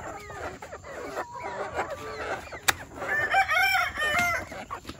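Backyard hens clucking and chirping, then about three seconds in a rooster crows, a loud cock-a-doodle-doo lasting about a second and a half.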